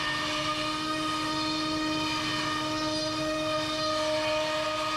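HSD spindle on a ShopSabre CNC router running with a steady whine while its router bit cuts pre-finished maple plywood, with the machine fitted with its stock brush dust boot.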